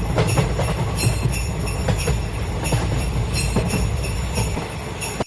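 Jingle bells shaking continuously over a steady low rumble.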